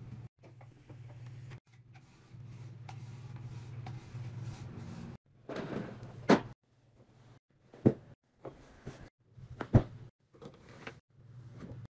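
A low steady hum for about five seconds, then a brief brushing rush and several sharp knocks and clunks, like hard objects being handled and set down.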